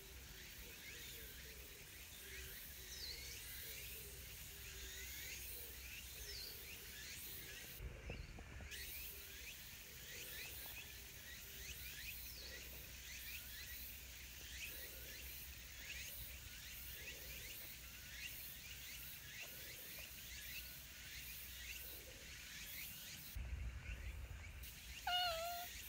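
Faint outdoor ambience of many short high chirps running throughout. Near the end comes one short, wavering pitched call, the loudest sound.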